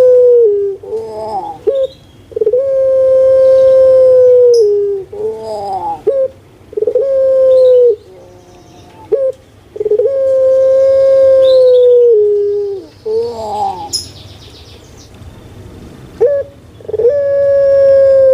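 Puter pelung (a Barbary dove, Streptopelia risoria) singing loud, deep coos: several long held notes, each dropping in pitch at its end and followed by a quick tumbling, falling phrase, repeated with pauses of a few seconds between them.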